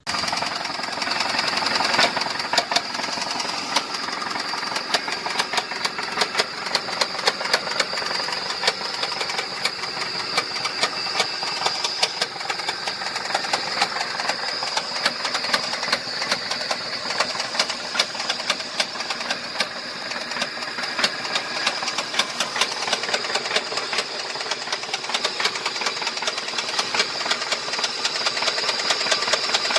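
2005 Ford F-150 engine running with a fast, steady knock, many knocks a second. It is the knocking of a bad, worn motor at 334,000 miles.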